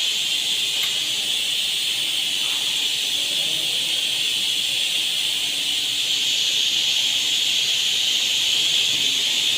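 A steady high-pitched hiss that does not change, with faint voices low underneath.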